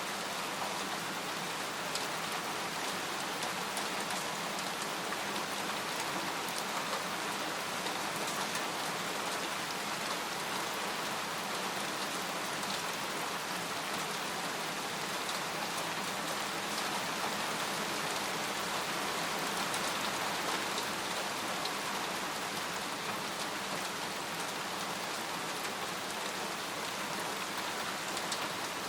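Steady rain falling on a tent, a dense even patter with single drops standing out here and there.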